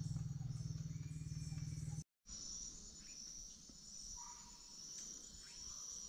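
Insects trilling steadily at a high pitch, with a few short bird chirps. A low rumble is the loudest sound for the first two seconds and stops abruptly at a brief dropout.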